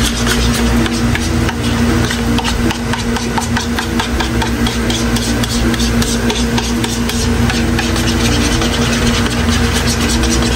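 A spoon scraping and clicking against a plastic mixing bowl in quick, irregular strokes as a thick sauce is stirred together. A steady mechanical hum with a low rumble runs underneath.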